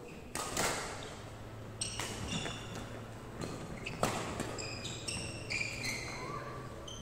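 Badminton rally: several sharp racket hits on the shuttlecock, the loudest about half a second and four seconds in, echoing in a large hall. Short high squeaks of court shoes on the wooden floor come between the hits.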